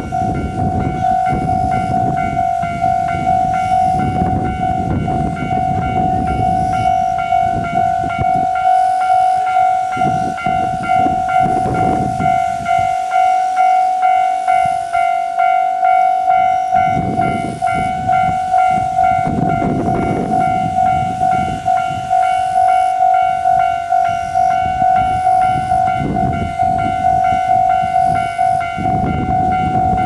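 Railway level-crossing alarm ringing: one steady pitched bell tone struck over and over, about one and a half strokes a second, each stroke fading before the next. A low, uneven rumble lies underneath.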